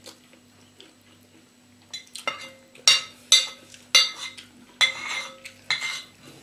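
Metal spoon and fork clinking and scraping against a ceramic bowl while eating: quiet at first, then a run of about half a dozen sharp, ringing clinks and short scrapes in the second half.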